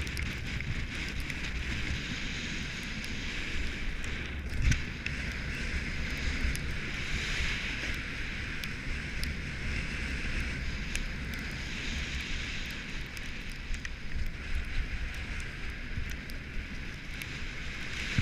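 Wind buffeting a moving camera's microphone during a fast ski descent, with the hiss of sliding over packed snow rising and falling through the turns. One short thump about four and a half seconds in.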